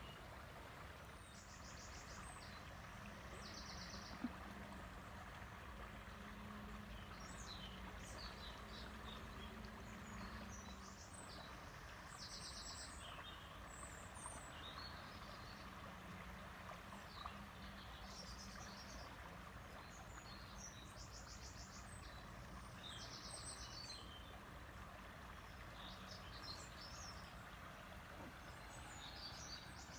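River water flowing steadily and softly, with birds chirping now and then and bursts of fast, high trills repeating every few seconds. A faint low hum comes and goes underneath.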